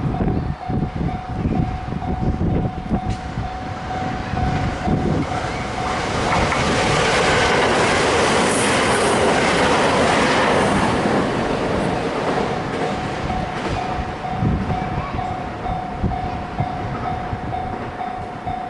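A train passes over a level crossing, its wheels clacking over the rail joints, loudest about midway through as it goes by. The crossing's warning bell rings steadily throughout, drowned out while the train is loudest.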